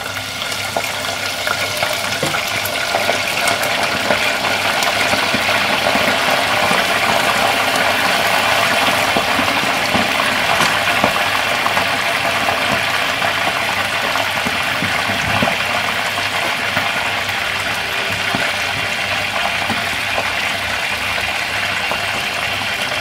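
Seasoned chicken wings deep-frying in hot oil in a stainless-steel pot with a wire basket. The oil sizzles and bubbles steadily, with scattered crackles, and grows louder over the first few seconds after the raw wings go in.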